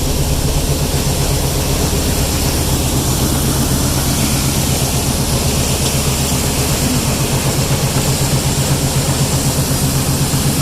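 Heavy diesel truck engine running steadily with a deep, even hum and a fast flutter that grows stronger over the last few seconds.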